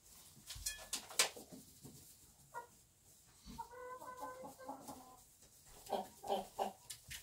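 Broody silkie hen vocalising on her nest: a few short sharp sounds early, a drawn-out call lasting about a second and a half in the middle, then a quick run of short clucks near the end.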